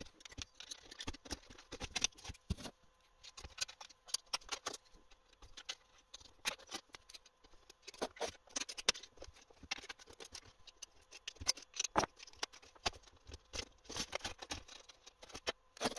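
Irregular small clicks, taps and knocks of metal parts being handled as a CNC3018's aluminium extrusion frame is taken apart by hand, with a few sharper knocks along the way.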